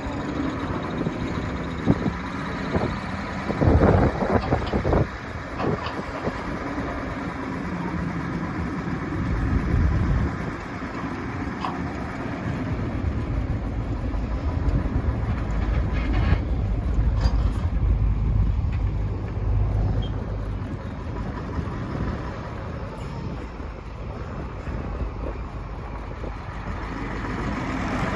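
Heavy diesel machinery running, with a few knocks and clanks in the first five seconds. A heavier low rumble comes around ten seconds in and again through the middle.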